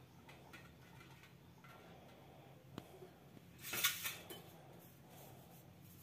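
Stainless-steel kitchenware clinking: a sharp tap a little under three seconds in, then a louder clatter just before four seconds, as a steel plate is handled and greased with oil.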